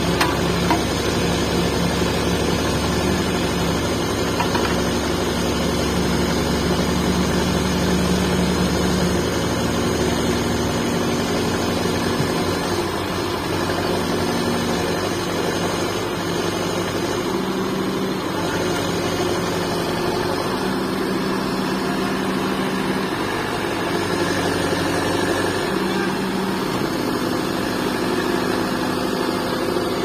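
Backhoe loader's diesel engine running steadily; from about eleven seconds in, its pitch steps up and down as the machine is worked.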